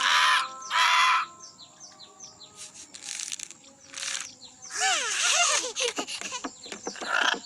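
Birds calling: two loud harsh squawks right at the start, a few faint chirps, then from about the middle a busy run of rising-and-falling whistled calls.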